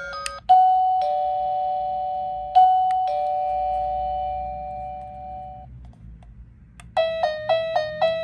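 Wireless doorbell receiver playing its chime tunes. A two-tone ding-dong chime is struck about half a second in and again about two and a half seconds in, each time ringing out and slowly fading. After a short lull near the end, a quick melody of short notes begins.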